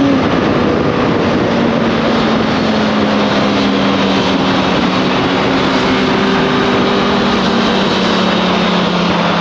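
Motorcycle engine running on the move, its pitch dropping right at the start and then holding fairly steady, over a constant rush of wind noise.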